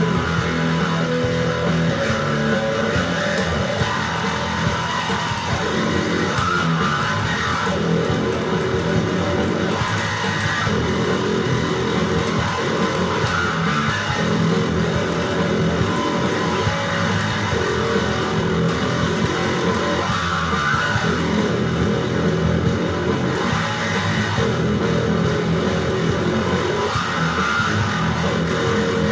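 Instrumental rock music with guitars and bass guitar, playing steadily without vocals.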